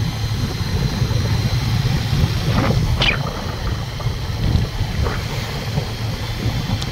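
Wind rushing over a phone microphone on a moving motorcycle, with the motorcycle's engine and road noise running underneath.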